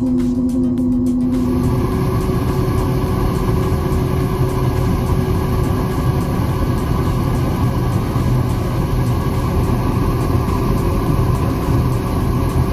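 A heavy vehicle's engine running steadily. About a second and a half in, the sound changes abruptly from a steady hum to a denser engine drone.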